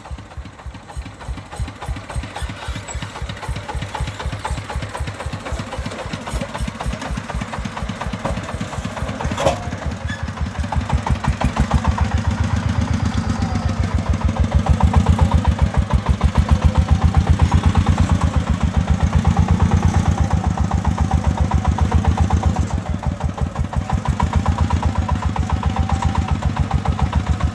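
Single-cylinder diesel engine of a soil-laden three-wheeled công nông farm truck chugging in an even, rapid rhythm as it drives. It grows louder about eleven seconds in, and there is one sharp knock about nine seconds in.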